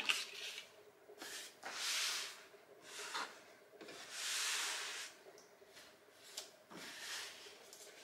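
Hands rubbing and sliding over the plastic shell of a robot vacuum cleaner while its packing tape is handled and removed. The sound comes as several separate swishes up to about a second long, the biggest around two seconds in and again near the middle, with a few light taps.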